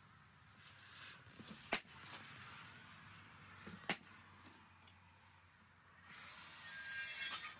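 Two sharp knocks about two seconds apart, then a scraping noise lasting about a second and a half near the end, from building work on a timber stud frame.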